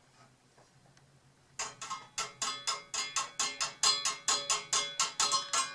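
Background music: a quick, even run of plucked, bell-like notes, about five a second, starting about a second and a half in after near silence.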